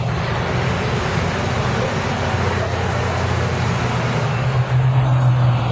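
TMC RTS transit bus's diesel engine running as the bus drives past, a steady low drone that grows louder and a little higher in pitch about four and a half seconds in.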